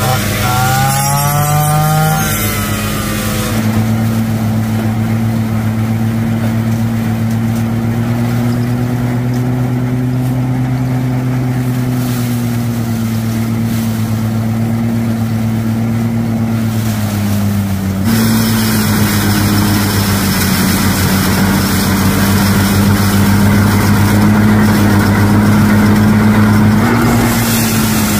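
A small petrol engine runs steadily, driving a mini rice thresher while rice stalks are fed through it. At the start, a backpack brush cutter revs up and down repeatedly as it cuts standing rice.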